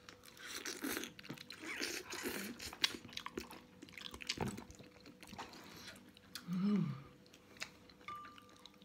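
A person slurping and chewing ramen noodles in broth, pulled up with wooden chopsticks: a run of wet slurps and mouth clicks in the first few seconds, then quieter chewing, with a short voiced sound from the throat about two-thirds of the way through.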